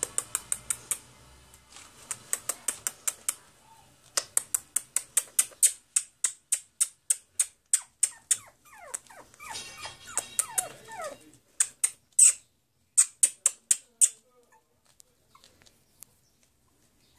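Chihuahua puppies whimpering, with short falling whines, amid runs of rapid high-pitched squeaks at about five a second.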